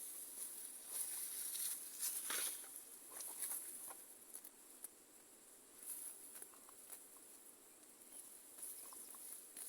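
Rustling and light crackling of weeds and plant stalks being pulled and cleared by hand, with a cluster of louder rustles about two seconds in, over a steady high hiss.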